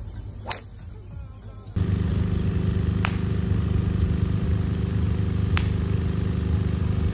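Three sharp clicks of golf drivers striking balls off the tee, each golfer hitting once: about half a second in, about three seconds in and near the end. Under the last two a steady low hum runs on.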